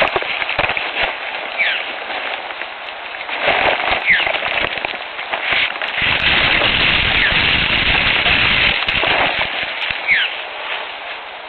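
Close crackling and rustling noise, made up of many sharp clicks, that grows dense and loud for several seconds in the middle. A bird's short, high, downward-sliding call repeats a few times over it.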